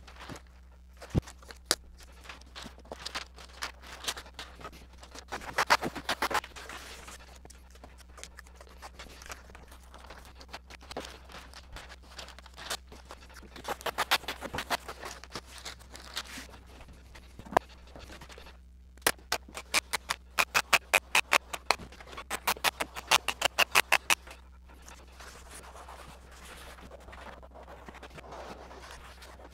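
Hand work on a strip-built wooden kayak's hull: scratchy scraping strokes and light taps, with two runs of quick, even scraping strokes, about five a second, a little past the middle.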